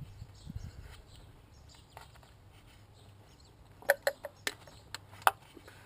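Hand tools clicking and clinking against metal while working on engine bolts: five or six sharp, irregular clicks in the second half, over a faint low hum.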